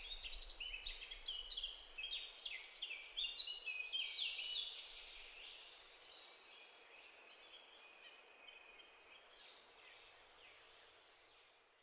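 Birds chirping and twittering: many short, high calls overlapping densely, busiest early on and fading away toward the end.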